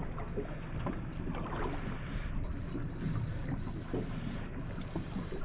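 Wind rumbling on the microphone and water lapping against a small boat's hull, with a few faint scattered clicks.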